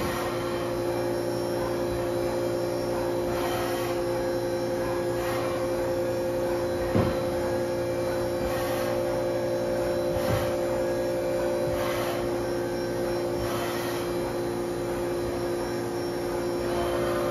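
Haas VF-6/40 CNC vertical machining centre running under power: a steady machine hum with two steady whining tones, and a couple of faint light knocks.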